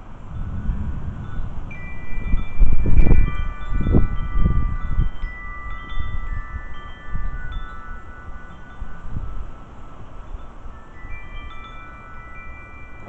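Wind chimes ringing in storm wind, several tubes sounding and fading at different moments. Under them a low rumble swells in the first few seconds, loudest about three seconds in, then dies back.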